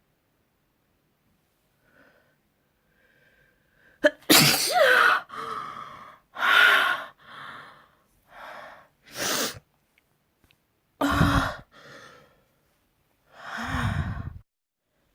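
A person sneezing repeatedly: after a few faint breaths, a run of loud sneezes starts about four seconds in and comes roughly every two seconds, several of them with a falling voiced 'ah', with sharp gasps between them.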